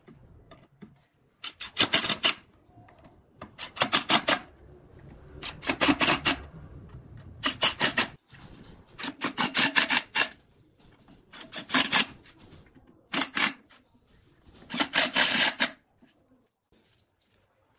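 Cordless impact driver hammering screws through wooden slats into a steel frame, about eight short rattling bursts roughly every two seconds, one screw per burst.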